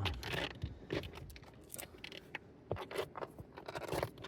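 Handling noise of fishing tackle being rummaged through for a pair of scissors: a run of small clicks, rattles and scrapes at uneven intervals.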